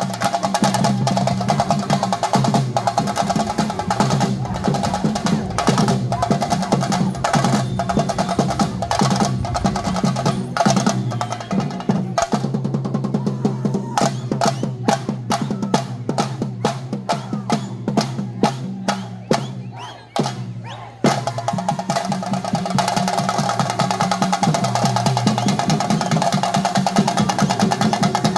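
Theyyam ritual drumming on chenda drums: a fast, dense drum roll over a steady pitched drone. About halfway through, the drumming thins to separate strokes, about three a second, then returns to a dense roll.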